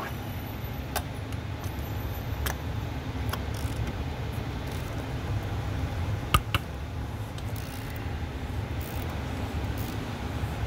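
A few sharp metallic clicks from a wrench and socket on a car's oil filter housing cap as it is worked loose, the loudest about six seconds in, over a steady low rumble.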